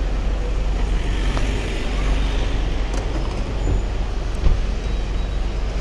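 Steady road traffic noise from cars at a kerbside, with a brief thump about four and a half seconds in.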